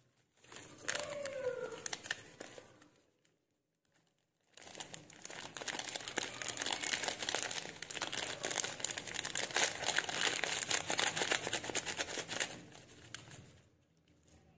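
Foil spice packet crinkling as it is shaken and squeezed to empty the masala powder out: a short burst, a pause of about a second and a half, then about nine seconds of steady crinkling that fades near the end.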